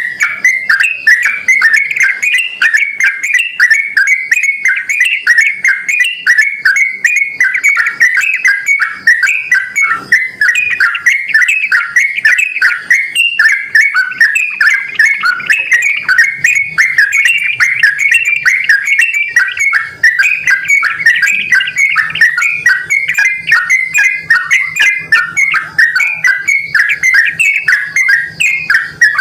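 Yellow-vented bulbul (trucukan) singing without pause: a fast, bubbly run of short chattering, whistled notes.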